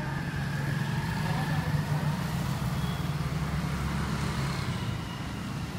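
Motorcycle engine running as it rides past along the street, a steady low engine hum.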